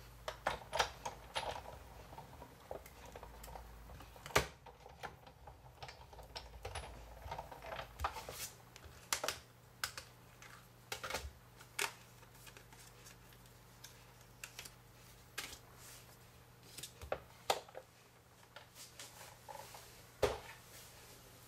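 Sizzix Big Shot die-cutting machine being cranked by hand to run a die and paper through its rollers: a run of irregular plastic clicks and knocks.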